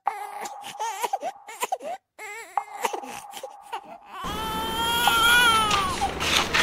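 An infant crying in short, wavering cries. About four seconds in, a louder swelling music cue with rising tones takes over.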